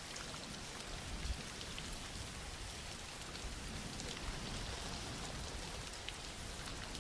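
Steady soft rain falling on a surface, with scattered individual drops ticking through the even hiss.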